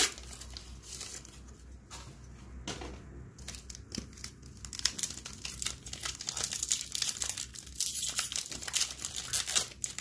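Foil Pokémon booster pack wrapper being crinkled and torn open by hand, an irregular crackling that grows busier about halfway through.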